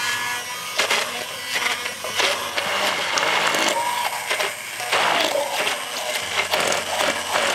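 Immersion blender running in a tall beaker of basil pesto while olive oil is poured in a thin stream to emulsify it. The motor and blade noise rises and falls irregularly as the blade works through the mix.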